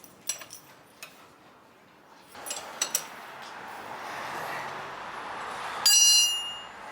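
Metal tools and brake parts clinking during brake caliper work: a few light clicks, then a steady hiss from about two seconds in, and near the end a single ringing metal clink.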